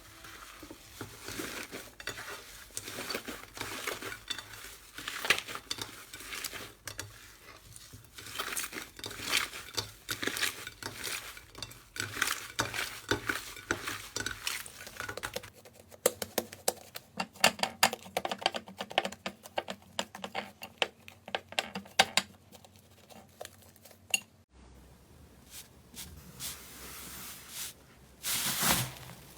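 Slime being squished, pressed and poked by hand, giving many irregular sharp clicks, crackles and sticky pops. The texture changes suddenly twice: a dense run of fast clicking fills the middle stretch, and quieter squishing follows near the end.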